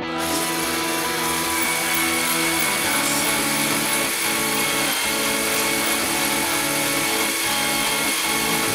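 Background music with long held chords over a dense noisy wash.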